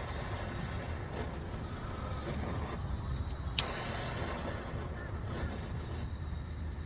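Handheld gas soldering torch burning steadily, its flame giving a continuous rushing rumble while it heats a copper pipe fitting. A single sharp click sounds about three and a half seconds in.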